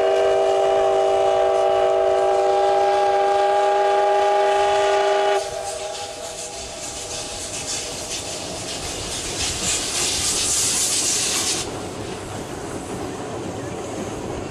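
C56 Mogul steam locomotive C56-44 blowing its steam whistle, one long chord of several notes at once that cuts off about five seconds in. Then steam hissing as the engine works its train, the hiss loudest for a few seconds past the middle.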